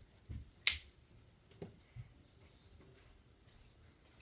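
A single sharp snap or click a little under a second in, with a few soft knocks before and after it.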